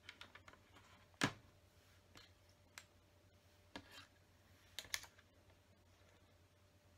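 Plastic LEGO bricks clicking as they are handled: pressed onto a model and picked up off a tabletop. A few scattered sharp clicks, the loudest about a second in.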